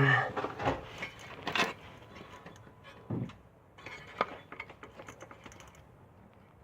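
Scattered small clicks, knocks and light rattles of hand work as a syringe is pressed into a car's rubber rear suspension bushing (silent block) to force oil in against the squeak. There is a low thud about three seconds in and a run of quick ticks about four seconds in.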